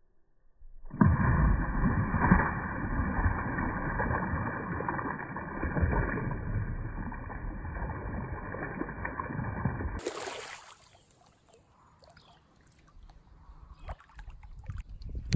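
Shallow creek water splashing and sloshing, a loud, muffled rush with no hiss that starts about a second in and cuts off abruptly about ten seconds in. Faint scattered ticks and knocks follow near the end.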